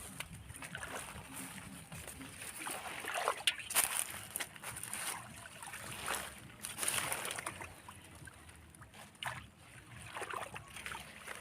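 River water splashing and sloshing in short, irregular bursts, stirred up by people wading and grabbing at fish by hand.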